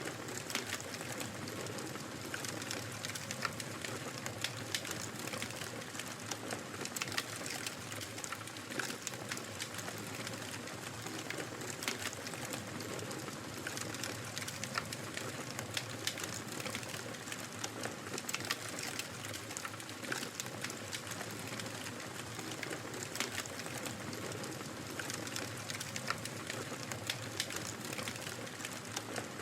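Wood fire crackling in a fireplace: irregular sharp pops and snaps over a steady soft hiss.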